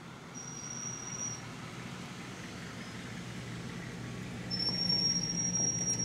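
Car engine running steadily as a car rolls past at low speed, getting louder over the last second and a half. A thin high whistling tone sounds twice over it.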